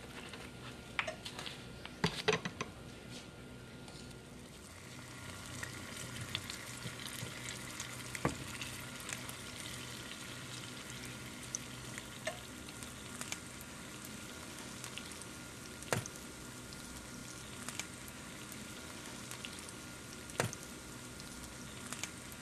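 Oil sizzling steadily as spoonfuls of donut batter deep-fry in a pan, with a few sharp clicks and knocks, the loudest about two seconds in.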